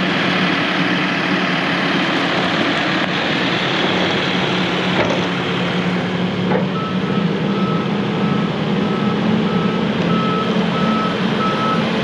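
Case 750M crawler dozer's diesel engine running steadily. About seven seconds in, its reverse alarm starts beeping at a regular pace, the signal that the dozer is backing up.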